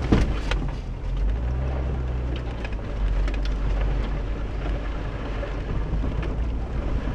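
Car engine and drivetrain with a low, steady drone and road rumble, heard inside the cabin while the car crawls over a rough, rutted dirt track. Scattered small knocks and rattles come from the car as it goes over the bumps.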